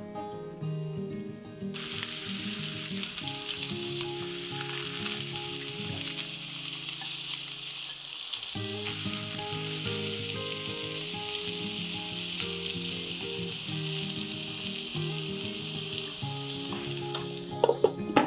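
Meatballs sizzling as they fry in oil in a frying pan, starting suddenly about two seconds in, over background music. Near the end a few sharp clinks as a glass lid is set on the pan.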